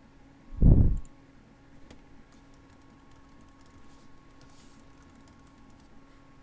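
A dull low thump about half a second in, then faint computer keyboard keystrokes as a password is typed.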